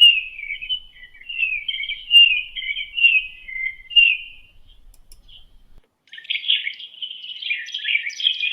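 AI-generated bird chirping, ElevenLabs sound effects made from the prompt 'sound of bird': quick high chirps and short trills for about four and a half seconds. After a short pause, a second sample starts about six seconds in with a denser run of chirps.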